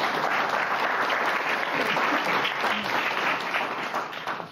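Audience applauding, a room of people clapping steadily that stops near the end.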